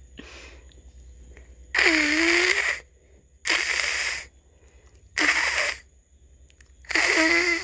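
A person imitating a cat's hiss, four times, each hiss lasting about a second with short pauses between. The first and last hisses carry a throaty voiced edge.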